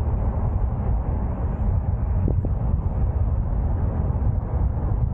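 Steady low rumble of a car being driven along a road: tyre and wind noise with no change in pace.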